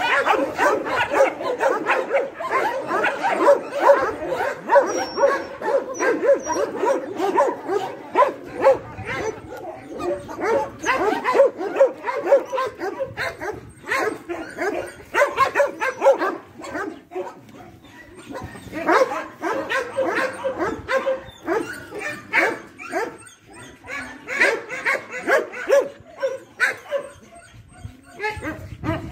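Dogs barking, short barks coming thick and overlapping almost without a break, dropping off briefly a few times.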